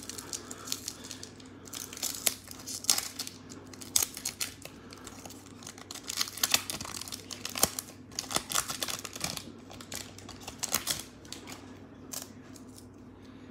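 Trading-card pack wrapper being torn open and crinkled by hand: a string of irregular sharp crackles that die down near the end.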